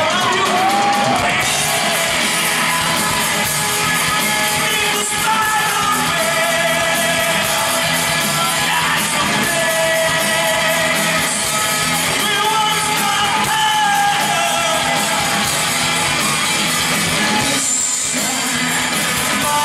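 A rock band playing live: a male singer sings over electric guitar, bass guitar and drums.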